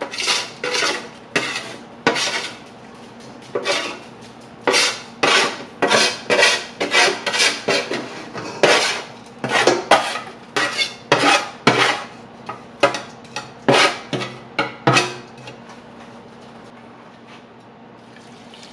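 Spatula scraping roasted cauliflower off a metal sheet pan into a stainless steel stockpot: a long run of separate scrapes and metal clatters, which stop about three seconds before the end.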